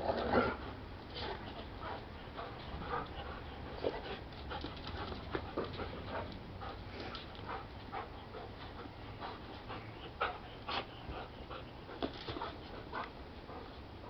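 A Belgian Malinois and a mixed-breed dog panting during and after rough play, with a louder burst right at the start as they wrestle and scattered short scuffs and clicks throughout.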